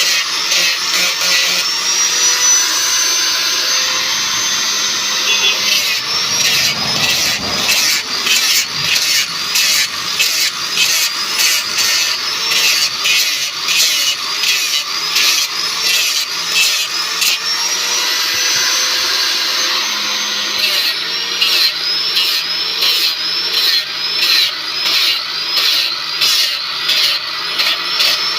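Electric power tool cutting into the wood of an esraj sound box. Its motor runs at a steady pitch at times, and from about six seconds in, and again after about twenty, it dips and recovers over and over, with regular strokes about twice a second as it bites the wood on each pass.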